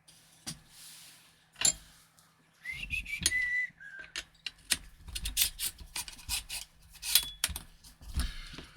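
Clicks, knocks and rubbing as airsoft rifle parts are handled, with a few short whistled notes falling in pitch about three seconds in.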